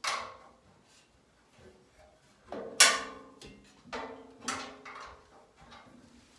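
A few sharp metallic clanks, each ringing briefly, as a hand wrench knocks against the steel hardware of a wood chipper while bolts are tightened; the loudest comes about three seconds in.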